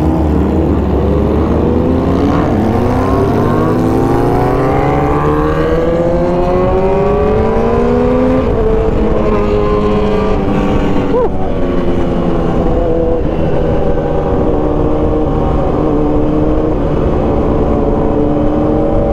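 Motorcycle engine accelerating while riding, with low wind rumble on the microphone. Its pitch rises over several seconds, drops once about eight seconds in, then climbs again and holds steadier.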